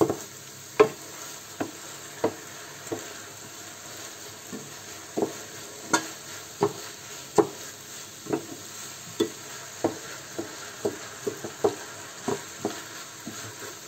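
Rice sizzling in sofrito in a frying pan while a wooden spoon stirs it, knocking against the pan about once or twice a second. The rice is being toasted in the oil and sofrito before the stock goes in.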